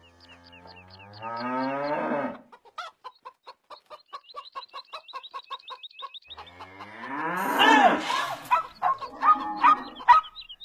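Farmyard sounds: a cow mooing twice, once near the start and again about seven seconds in, with chickens clucking in short repeated calls between and after.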